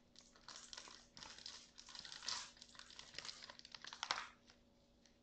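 Faint crinkling and rustling of foil Pokémon card pack wrappers being handled and torn open, in short uneven rustles that stop about four seconds in.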